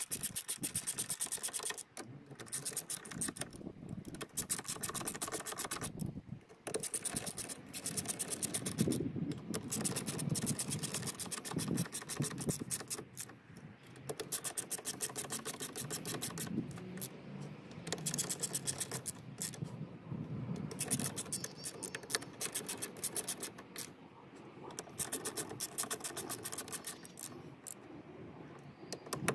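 Hand ratchet clicking in quick runs of strokes with short pauses between, as the bolts holding down the diesel fuel filter lid are screwed in.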